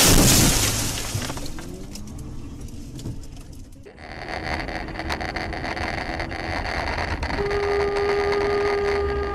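A dashcam vehicle's crash: a sudden loud smash with crunching that dies away over about a second. Then steady car cabin road noise, and about halfway through a long, steady car horn blast lasting about three seconds.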